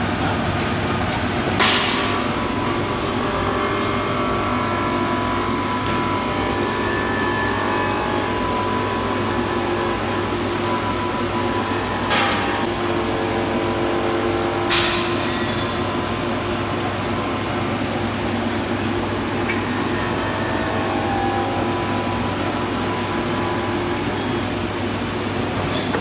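Horizontal glass washing machine running with a steady hum as glass sheets pass along its roller conveyor, broken three times by a sharp knock with a short ring.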